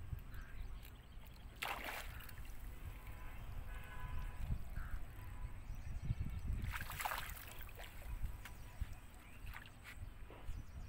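Hooked mrigal carp splashing at the water's surface as it is drawn in on a handline: two short splashes, about two seconds in and again around seven seconds, over a low rumble.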